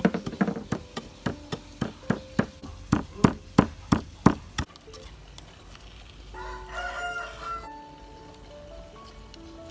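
A run of sharp knocks, about four a second and slowing, stops about four and a half seconds in. About six and a half seconds in, a rooster crows once, over faint background music.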